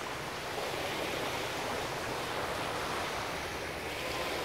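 Small waves washing onto a sandy beach, a steady surf hiss.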